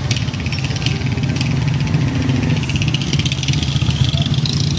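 Motor vehicle engine running steadily, a low hum with a fast, even rattle over it, in street noise.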